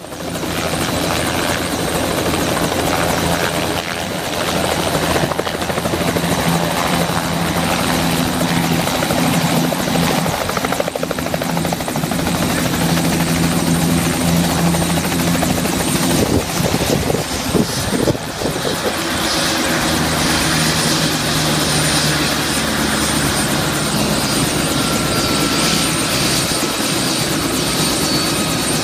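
Small two-bladed turbine helicopter running on the ground with its rotor turning: a steady high turbine whine over a low rotor and engine hum. A few knocks come about two-thirds of the way in.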